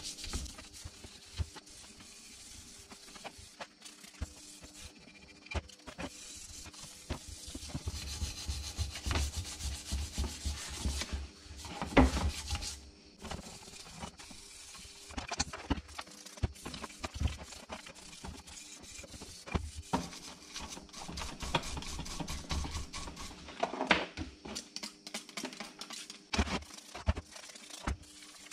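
Hand brush scrubbing an aluminium motorcycle crankcase half in a tub of cleaning liquid: quick, repeated rubbing strokes, with an occasional sharper knock of the casing being handled.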